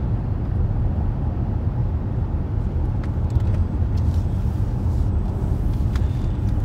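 Car driving along, heard from inside the cabin: a steady low rumble of engine and road noise.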